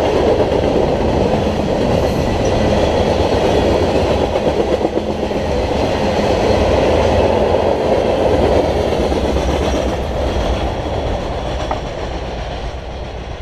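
Freight train cars rolling past: steel wheels rumbling and clacking over the rail joints, fading over the last few seconds as the train moves away.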